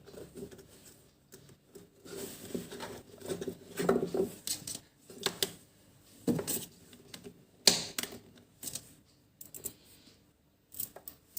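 Small magnetic balls clicking and snapping together in irregular bursts as they are handled and pressed into a cube.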